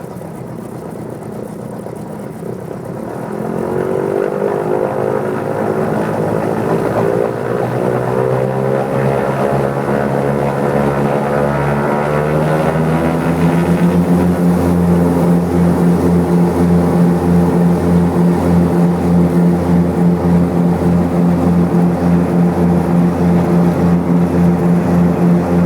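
Twin piston engines and propellers of a Grumman GA-7 Cougar light aircraft powering up for take-off. The engine note swells and climbs in pitch from about three seconds in. From about fourteen seconds it settles into a loud, steady drone with a regular throbbing.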